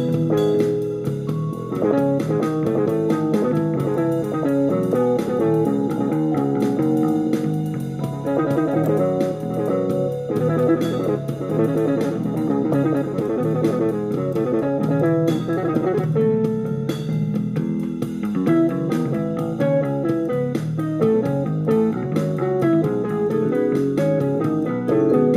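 Jazz played on an electronic keyboard's octave-guitar voice: quick single-note guitar-like lines over a bass line underneath.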